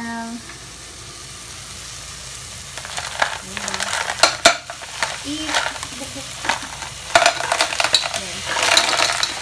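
Live clams in their shells tipped from a plastic container into a hot pan of frying tomato and onion and scraped out with a spatula: shells clattering against each other and the pan over a frying sizzle. The clatter comes in bursts from about three seconds in and is thickest near the end.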